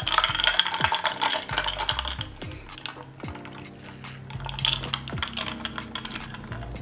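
A spoon scraping and clicking against a plate in quick, irregular strokes while rice is scooped up, over background music.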